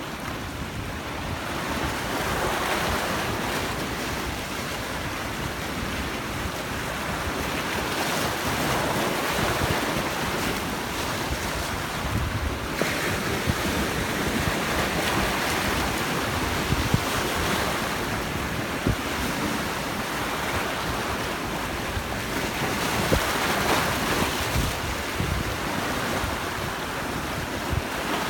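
Sea waves breaking and washing on the shore, a constant rush that swells and eases every few seconds.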